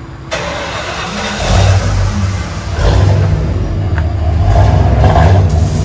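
Ford 5.0L V8 running through a dual exhaust with a Flowmaster Super 10 muffler and flat tips, a deep rumble that builds about a second and a half in and is revved, rising again around three seconds in.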